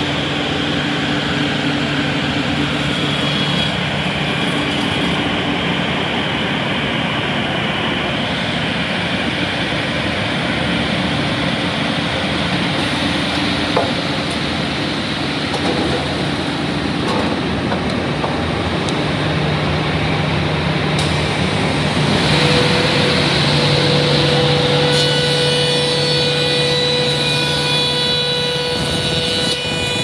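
Sawmill twin circular saw running: a loud, steady machinery din with a low hum. About two-thirds of the way in a steady mid tone joins and the noise rises a little, and near the end a high ringing whine sets in.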